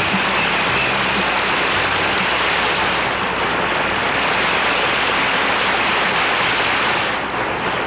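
Studio audience applauding steadily, with the band's last held chord dying away about a second in.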